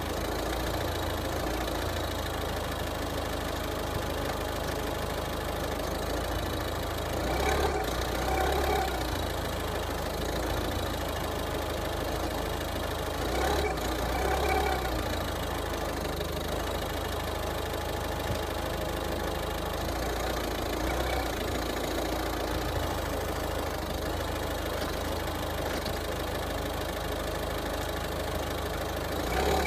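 Mazda 3's engine idling steadily, briefly revved a few times, about a third of the way in, near the middle and at the end. The owner hears a metallic rattle when giving throttle and suspects a broken motor mount.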